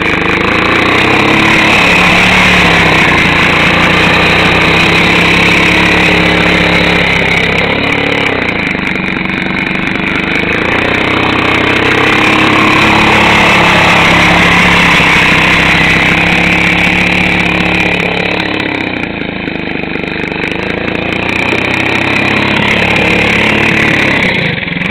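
Small quad bike (ATV) engine running loudly as it is ridden, its revs rising and falling again and again as the throttle is opened and eased.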